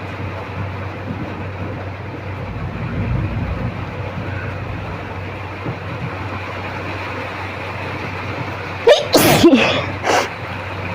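A person sneezing hard once, provoked by red chilli powder pushed into the nose on a cotton bud, about nine seconds in, followed about a second later by a shorter burst. A steady low hum runs underneath.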